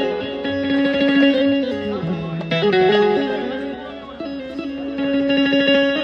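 Indian banjo, an amplified keyed string instrument of the bulbul tarang type, playing a melody of held notes that step from one pitch to the next.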